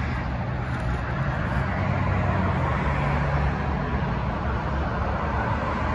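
Steady road traffic noise: a continuous rush of cars passing on a busy road, with a low hum underneath.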